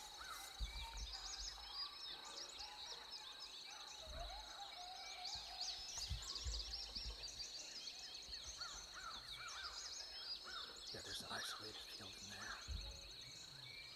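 A group of coyotes, adults and pups, answering a howl call with a faint chorus of yips and howls: many short rising and falling cries crowding over each other. A steady high-pitched whine runs under them.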